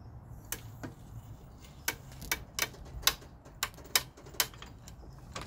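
A series of about ten sharp clicks at uneven intervals from a hydraulic floor jack as it lets the car down.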